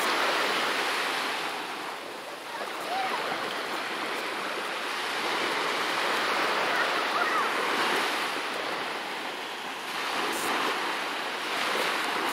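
Small waves breaking and washing up on a sandy beach: a steady rushing surf that swells and eases as each wave comes in.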